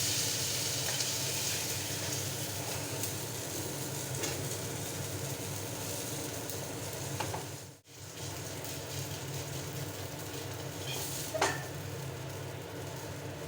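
Food frying in a pan, a steady sizzle, briefly cut off about halfway through, with a short clink or tap near the end.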